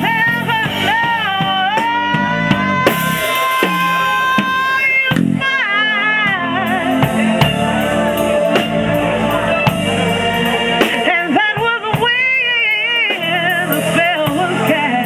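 A woman singing a soul ballad with vibrato over a live band of electric bass guitar and drum kit with cymbals, holding one long, slightly rising note about two seconds in.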